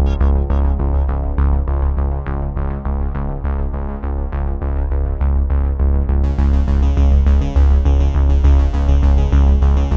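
Electronic background music with synthesizer chords over a steady, pulsing bass beat; about six seconds in the sound brightens as high treble opens up.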